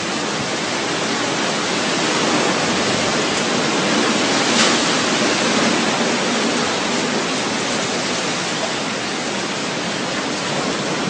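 Typhoon wind and heavy rain: a steady, dense rush of noise that never lets up.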